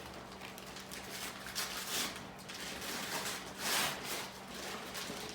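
Rustling and crinkling of gift wrap as a Christmas present is unwrapped and handled, in a series of swishes, the loudest about two seconds in and again near four seconds.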